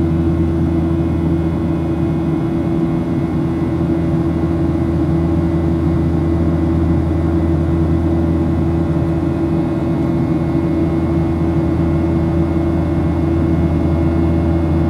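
Steady low drone inside the cabin of a Boeing 737-800: its jet engines and air system humming at an even level, with no rise or change.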